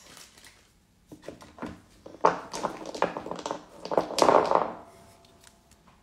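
Hands rummaging among gel polish bottles and packaging on a desk: scattered clicks, knocks and rustling, with a sharp click just after two seconds and the busiest stretch about four seconds in.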